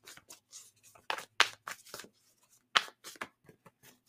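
Tarot cards being handled and shuffled: a run of short, irregular snaps and flicks of card against card.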